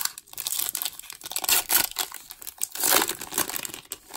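A foil wrapper on a 2019 Topps Update Series baseball card pack being torn open by hand. A dense run of crinkling and tearing that is loudest about halfway through and again about three seconds in, then stops.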